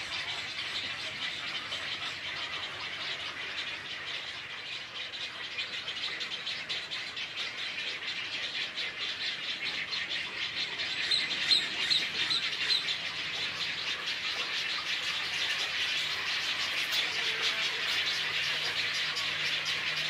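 Mixed waterbird nesting colony of egrets, roseate spoonbills and cormorants: a dense, continuous chatter of many birds calling at once. A little past halfway, a short run of about five clearer, higher notes stands out as the loudest part.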